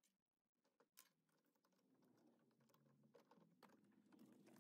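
Near silence, with a few faint clicks and taps from a stainless steel spoon being handled and set into a bench vise.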